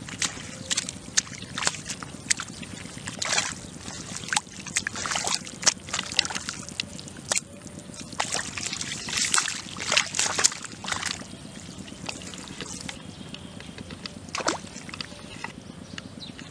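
Hands splashing and sloshing in shallow muddy water, groping for eels. Splashes come thick and fast for about the first eleven seconds, then thin out to an occasional one.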